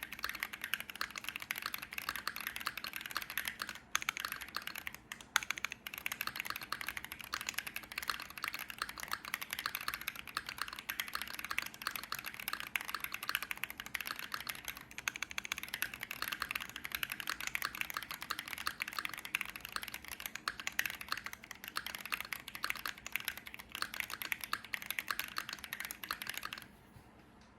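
Continuous fast typing on a Keychron Q5 mechanical keyboard with lubed Cannonkeys Coffee Chip tactile switches and PBT keycaps on a steel plate with a two-layer tape mod: a dense run of irregular key clacks. The typing stops near the end.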